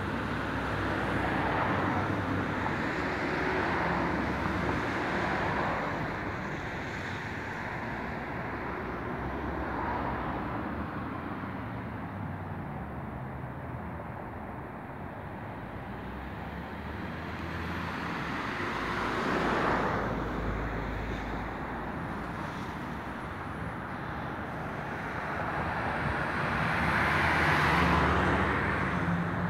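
Road traffic: a steady hum of cars with vehicles swelling past one after another, the loudest passing a couple of seconds before the end.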